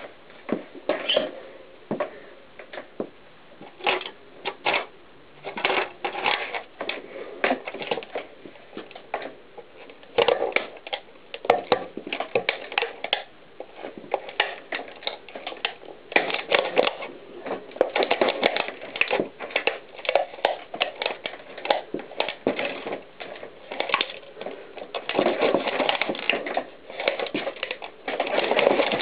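A mountain bike's knobby tyre pressing down on a black plastic tape cassette stacked on a metal tape reel and crushing them. It gives a long, irregular run of cracks, creaks and crackles as the plastic and metal give way, growing denser in the second half.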